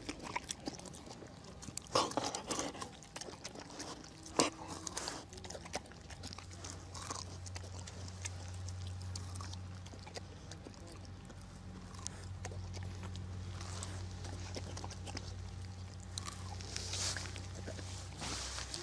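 A dog sniffing and snuffling with its nose down in low grassy vegetation, with rustling and a couple of sharp knocks early on. A steady low hum runs underneath from about a third of the way in until near the end.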